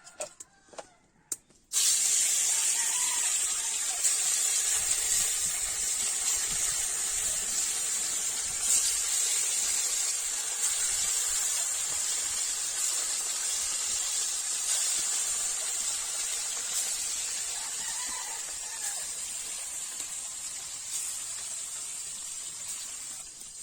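Food sizzling in hot oil, starting suddenly about two seconds in as it goes into the pan, then a steady hiss that slowly fades. A few light clicks come before it.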